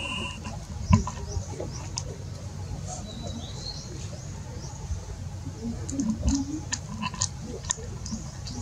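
Scattered light clicks, ticks and crinkles as a baby macaque paws and picks at a clear plastic bag on a stone ledge, with a few brief high chirps.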